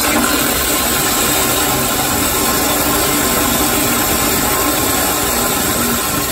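Kohler Kingston commercial toilet flushing with a flushometer valve: a loud, steady rush of water pouring through the bowl and down the drain.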